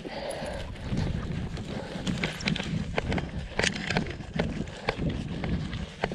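Footsteps of a person walking briskly through low forest undergrowth, with rustling and irregular knocks and ticks, over a low rumble of wind and rubbing on a body-worn camera microphone.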